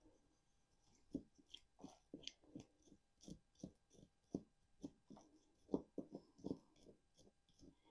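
Faint, irregular clicks and snips of hand tools working privet wood, about one or two a second.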